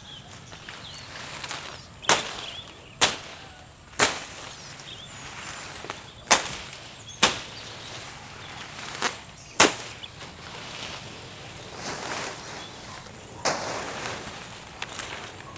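Sharp snaps of grass and vine stems being broken or cut by hand, a series of crisp cracks a second or two apart, then rustling leaves near the end.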